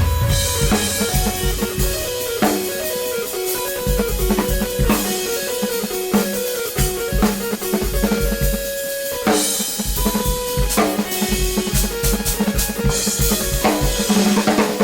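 Instrumental music: a drum kit with kick drum, snare and rimshots, playing along with short pitched notes from a guitar or keyboard.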